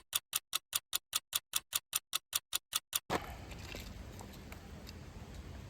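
Clock-ticking sound effect, about five crisp ticks a second for about three seconds, with all background sound cut out between the ticks. It then stops and faint outdoor background noise returns.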